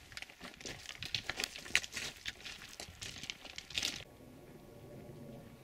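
Dense crackling and rustling handling noise at the microphone, like fabric or a hand rubbing against a handheld camera. It stops abruptly about four seconds in, and only a faint steady hiss remains.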